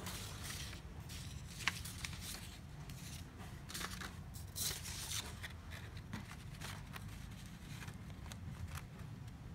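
HP Color LaserJet M277n laser printer running a print job: a low steady hum with irregular rustles and clicks as a sheet of paper feeds through and slides out of the output slot.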